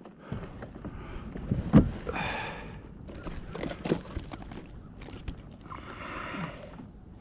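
Knocks and bumps on a plastic fishing kayak, the loudest about two seconds in, with three spells of rasping noise as fishing gear is handled aboard.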